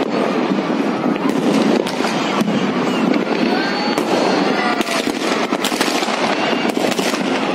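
Fireworks and firecrackers going off all across a city at once: a continuous crackle with many sharp bangs, some close together a little after the middle. A few whistles glide up and down in pitch.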